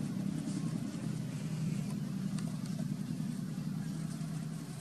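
A motor running steadily with a low, even drone.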